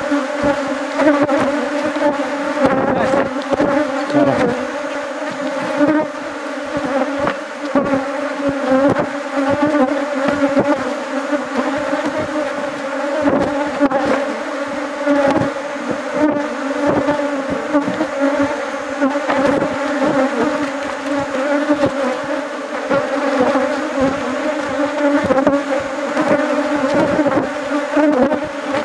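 Honeybees buzzing in large numbers around an opened hive: a loud, continuous drone that swells and dips as bees fly close past.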